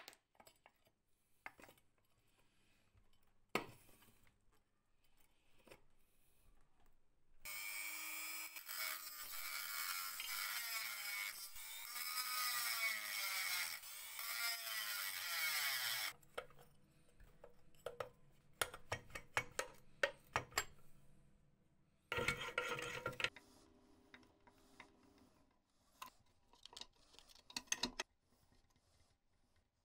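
Small handheld rotary tool running against the metal of an old potato slicer for about eight seconds, its motor whine dipping and rising as it bears on the work. Before and after it come scattered clicks and knocks of metal parts being handled, with a second short burst of noise about 22 seconds in.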